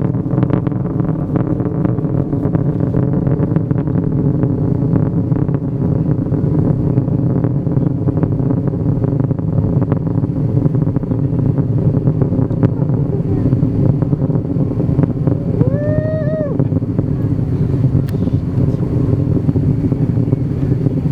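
Antares rocket's two Russian RD-181 first-stage engines heard from the ground during ascent: a loud, steady, crackling rumble. A brief rising-and-falling cry cuts through it about three quarters of the way in.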